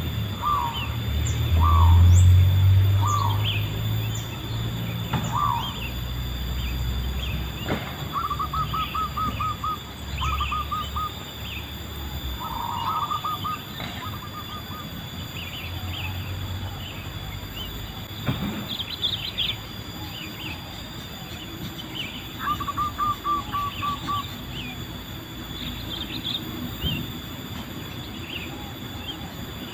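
Zebra dove cooing: short single coos about a second apart in the first few seconds, then quick strings of staccato coo notes several times. Smaller birds chirp higher throughout, over a low rumble that stops about twelve seconds in.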